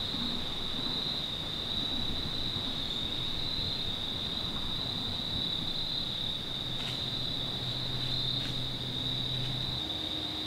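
Crickets trilling in a steady, high, unbroken chorus. A faint low hum joins in for a few seconds in the second half.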